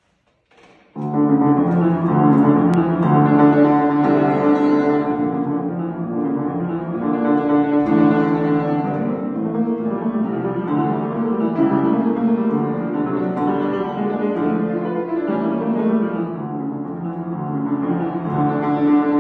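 Upright piano played solo: after a few faint clicks, continuous full-textured playing begins about a second in and carries on without a break, weighted in the low and middle register.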